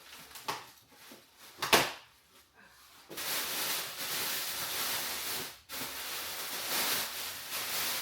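Packaging being handled during unboxing: a few knocks and clicks, then a steady rustling hiss from about three seconds in, broken briefly near six seconds.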